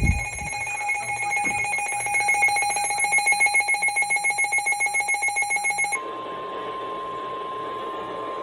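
Weather radio receiver's alert alarm beeping in rapid, even pulses, about five a second. About six seconds in it cuts off and the broadcast's steady 1050 Hz NOAA Weather Radio warning alarm tone comes through over static hiss, signalling that a warning is about to be read.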